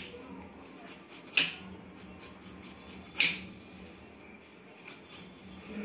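A knife cutting the rind off a whole pineapple: two sharp cutting strokes, about a second and a half in and again about three seconds in, over a faint steady hum.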